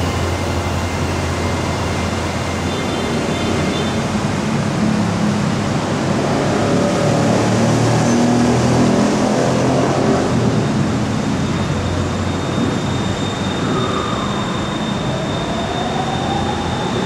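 BTS Skytrain electric train running at an elevated platform, a steady rumble throughout. Over the last few seconds a whine rises in pitch as its traction motors speed up.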